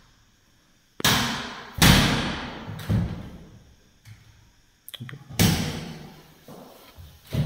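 Hinged doors of a plastic-wood (PVC board) cabinet being swung shut, giving a series of thuds and knocks: about five loud ones with lighter clicks and knocks between.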